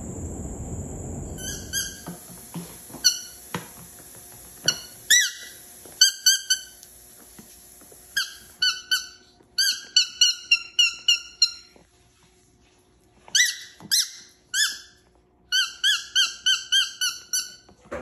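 Umbrella cockatoo giving short, high, squeaky chirps, singly at first and then in quick runs of several, with a few sharp clicks between.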